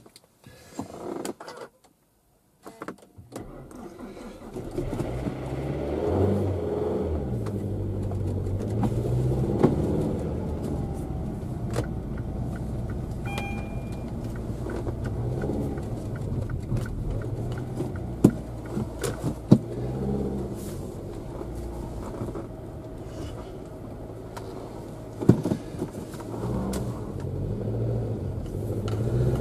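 Car driving, heard from inside the cabin: engine and road noise that comes in after a few seconds of near silence, the engine rising and falling in pitch several times. A few sharp knocks sound over it.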